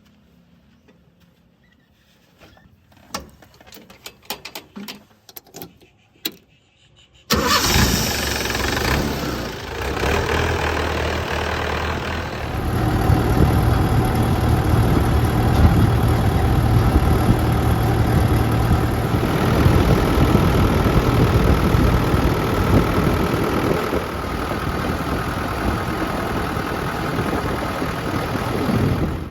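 A few faint clicks and knocks, then about seven seconds in a heavy diesel engine of earth-moving machinery comes in suddenly and loud. It grows louder about five seconds later and then runs steadily with a deep rumble.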